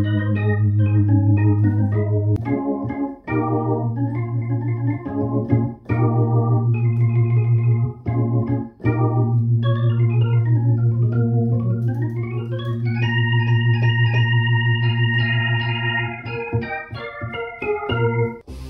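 Digital keyboard played with an organ sound: sustained bass notes under shifting chords, with a fast wavering tremolo on the held notes and a climbing run of notes about two-thirds of the way through.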